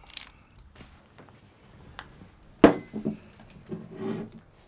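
Small handling noises: a brief rustle at the start, a light click about two seconds in, then a sharp knock a little past halfway, followed by a few softer low sounds.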